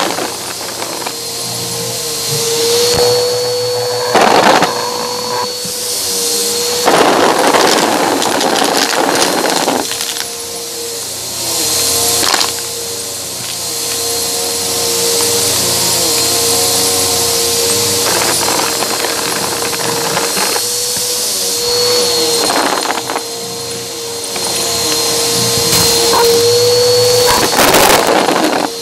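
Bissell upright vacuum running with its brushroll on shag carpet, heard through a microphone mounted on the vacuum. A steady motor hum is broken several times by loud crunchy rattling as small erasers and coins are sucked up.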